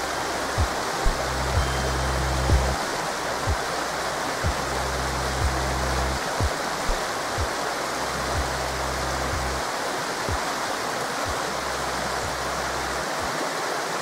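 Forest river rushing steadily, mixed with soft background music: low sustained bass tones and a soft low thump about once a second, the bass dropping away about two-thirds of the way through.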